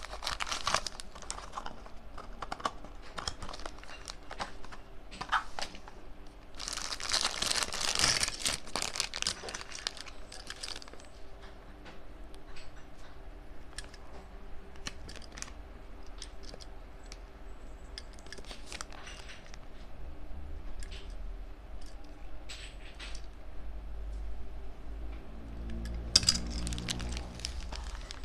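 Packaging of a Tomica die-cast toy car being handled and opened by hand: paper and plastic crinkling and tearing, with small clicks. There is a longer stretch of rustling about a quarter of the way in, and another near the end.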